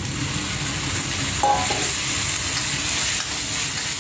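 Deep-fried tofu cubes tipped from a steel bowl into a hot wok and stir-fried, a steady sizzle of oil with scraping from a metal ladle, and a brief metal clink about one and a half seconds in.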